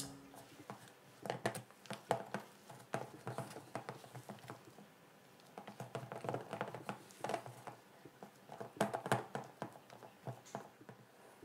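Rubber spatula folding and pressing thick rice-flour cookie dough with chocolate chips against a mixing bowl: irregular soft taps and scrapes, easing off for a moment about halfway through.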